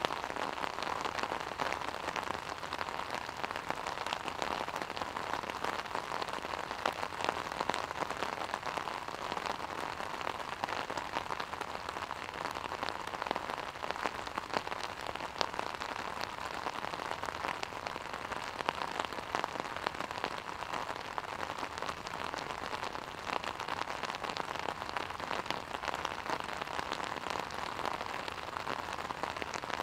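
Steady rain, with raindrops hitting an umbrella held over the microphone: a dense stream of small taps over an even hiss.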